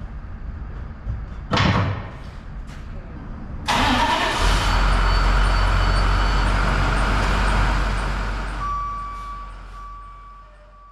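Heavy diesel equipment running, with a loud clank about a second and a half in. About four seconds in comes a sudden loud rushing pour lasting about five seconds, typical of a wheel loader's bucket of road salt dumped into a truck's bin. It leaves a steady high tone as the sound fades out.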